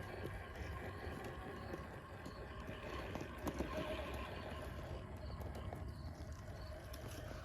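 Redcat Vertex 6 1/6-scale RC rock crawler crawling over rock in underdrive: its electric motor and geartrain whine, with many small clicks and scrapes from the tires and chassis on stone.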